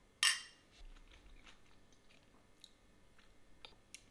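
A person eating fresh salad: one loud crunchy bite just after the start, then faint chewing.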